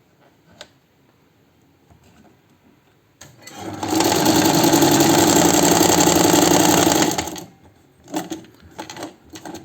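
Chaika 143A sewing machine sewing a zigzag test seam at speed for about four seconds, starting after a quiet few seconds and stopping about three-quarters of the way through. A few light clicks near the end.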